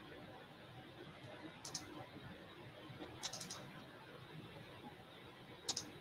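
A few sharp computer clicks, a second or two apart, with a quick cluster of two or three about halfway through, over faint room noise.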